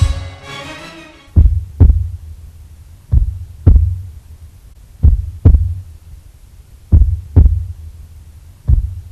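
Heartbeat sound effect: slow pairs of deep thumps, lub-dub, repeating about every two seconds, with a trailer's music dying away in the first second.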